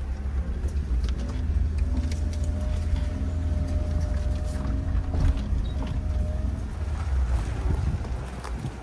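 Suzuki Jimny crawling along a rough forest track in low-range gears, heard from inside the cab: a steady low engine and drivetrain drone, with a faint higher whine from about one second in until about seven seconds in. Scattered clicks and knocks come from the rough ground and from branches brushing the body.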